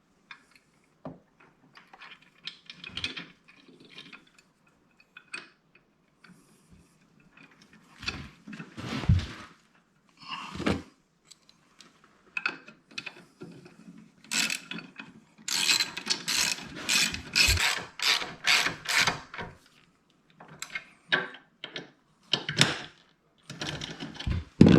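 Socket ratchet clicking as motorcycle floorboard mounting bolts are run in before final torquing. Scattered knocks of tools and parts come first, then a run of quick ratchet strokes lasting about four seconds, starting about fifteen seconds in.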